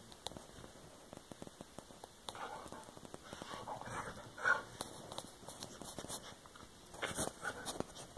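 A dog sneezing hard: a short sharp burst about halfway through and another near the end, among scattered light ticks.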